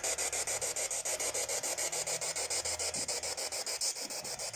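Spirit box (ghost box radio) played through a small external speaker, sweeping across radio stations: an even, rapid pulsing hiss of static, chopped several times a second.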